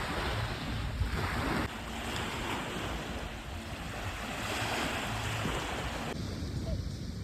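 Sea waves washing on a shore, with wind buffeting the microphone. The wash changes abruptly about two seconds in and again about six seconds in.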